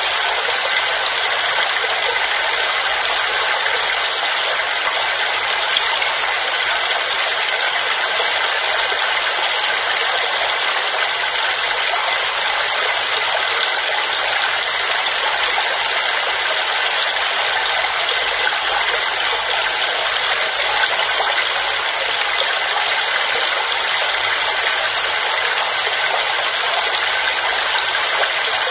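Waterfall: falling water rushing steadily, with little deep rumble.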